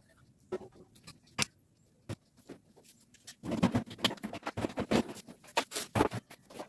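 Metal tools and parts being handled: a few scattered clicks at first, then a dense run of clattering and knocking from about halfway.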